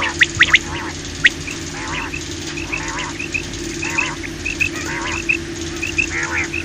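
Common quail calling: many short, sharp notes in quick succession at first, then softer paired chirps and repeated harsher calls overlapping, over a steady low hum.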